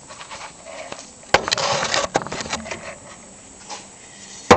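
A cast aluminium 6-71 blower housing and its parts handled on a wooden board. A sharp knock comes about a second in, followed by a second or so of scraping and sliding of metal on wood, then a loud knock near the end as a part is set down.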